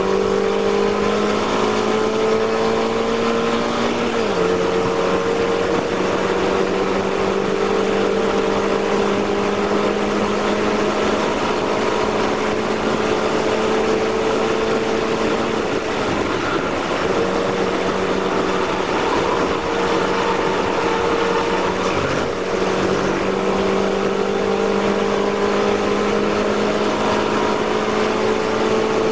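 Mazda race car's engine heard from inside the cockpit, running hard at high revs under power with the note slowly climbing. It drops sharply at a gearchange about four seconds in, and briefly dips around sixteen and again around twenty-two seconds.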